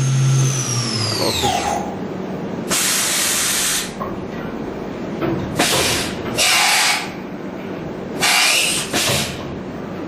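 CNC milling machine: the spindle whine falls in pitch as it winds down, then five short bursts of loud hissing follow over the machine's steady hum.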